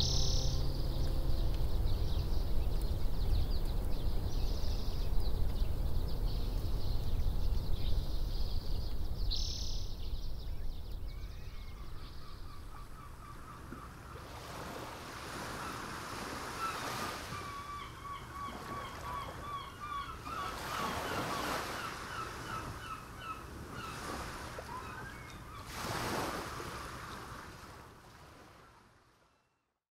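Sea surf and wind rumble, fading away over the first dozen seconds. Then birds call in quick trilling runs over waves washing in, until it all fades out near the end.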